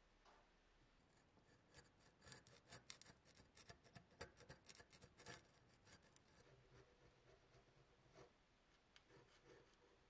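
Flat metal scraper blade scraping crusty corrosion off a brass trench-art lighter: a run of faint, quick rasping scrapes, busiest in the middle few seconds and sparser near the end.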